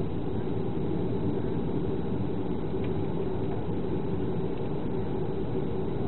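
Boeing 737 jet engines running steadily, heard as a constant low roar with a steady hum from inside the passenger cabin.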